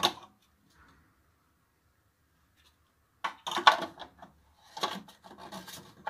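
Plastic hinge cover being pressed and worked onto a metal cabinet hinge: short rubbing, scraping scuffs of plastic on metal in two spells after a quiet first half, with the cover not yet clicked into place.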